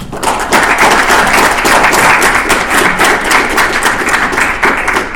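Conference audience applauding, a dense patter of many hands clapping. It swells just after the start and dies away near the end.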